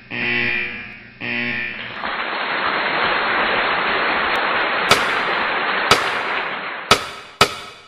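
Edited-in intro sound effects. Two bell-like chime notes ring and fade, then about two seconds in a steady rushing noise runs for around four seconds with a couple of sharp cracks in it. Near the end come separate sharp, firework-like bangs each about half a second to a second apart.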